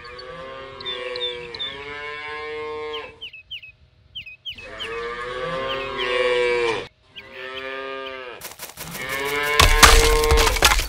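Cattle mooing: three long, drawn-out moos with short high chirps in the background. Over the last moo, a loud crackling noise comes in about two-thirds of the way through and peaks near the end.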